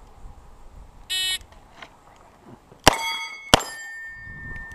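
A shot timer beeps once. Just under two seconds later a revolver fires twice, about two-thirds of a second apart, and each shot is followed by the high ringing of a struck steel target plate.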